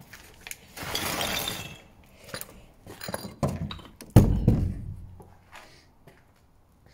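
A scraping rustle, then several sharp knocks and one heavy thud about four seconds in, dying away within a second.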